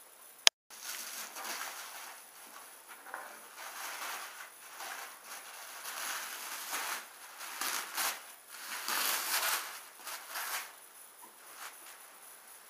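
Tissue paper rustling, crinkling and tearing as it is unwrapped from a cardboard doll box, louder in the second half. A sharp click with a brief dropout about half a second in.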